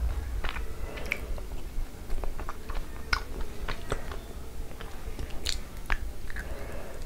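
Close-miked chewing and wet mouth sounds of someone eating soft Indian sweets, with irregular sharp clicks.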